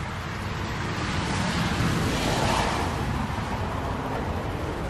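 Rain falling steadily, an even hiss that swells about two seconds in and eases off again.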